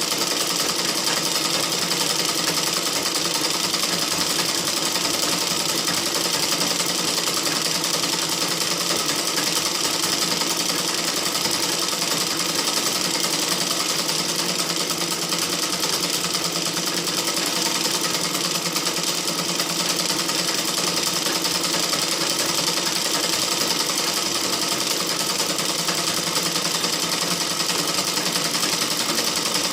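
Sewing machine running continuously at a steady speed, its needle mechanism clattering rapidly and evenly without pause.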